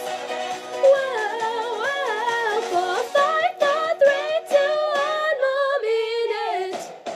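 Layered female voices singing in close harmony, a cappella-style, several parts moving together through quick runs; near the end the parts settle on a held note that slides down and fades.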